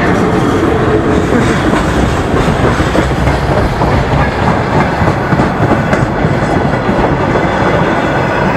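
Freight train rolling past, its wagons' wheels clattering over the rail joints in a steady loud rumble.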